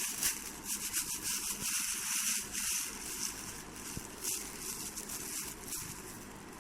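Plastic crinkling and rustling as a kitten plays with it, a run of small crackles that is busiest for the first three seconds and thins out after.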